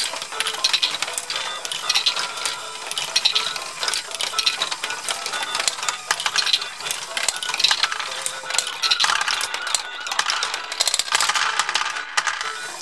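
Small plastic Lego balls clicking and rattling through a Lego Great Ball Contraption module, along with the running chain lift and gears. Many quick, irregular clicks.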